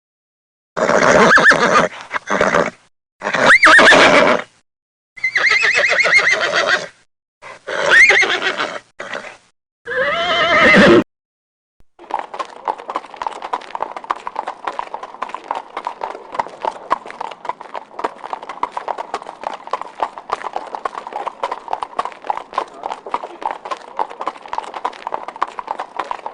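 A horse neighing about five times, loud whinnies separated by short silences, some rising then falling in pitch. About halfway through the calls stop and a fast, steady clatter of hooves takes over.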